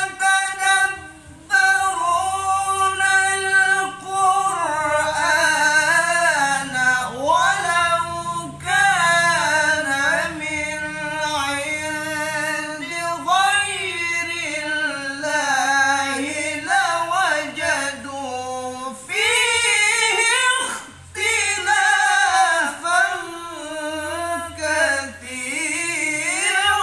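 Unaccompanied male qaris chanting Qur'an recitation in the ornamented melodic (tilawah) style: long held notes that wind up and down, with short breaths about a second in and again near 21 seconds.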